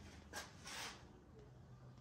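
Faint handling noise: a light click about a third of a second in, then a short rustling scrape just before the one-second mark, over quiet room tone.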